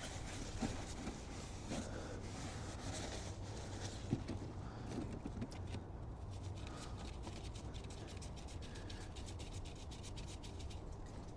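Faint rubbing and handling noises over a low steady hum, with a few light knocks early on and a quick run of small ticks in the second half.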